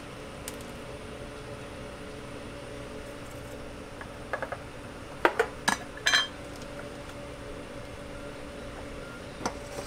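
Kitchenware clinking and clattering at a food counter: three light clicks, then a quick run of louder clinks about halfway through and one more near the end, over a steady hum of shop equipment.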